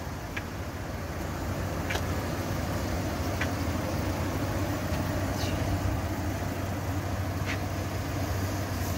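Engine of a 2009 Hummer H3T, a 3.7-litre inline five, idling with a steady low hum, with a few faint ticks over it.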